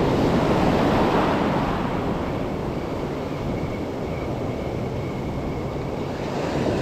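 Surf washing in around the legs, with wind buffeting the microphone. The wash is loudest in the first second or two, then eases.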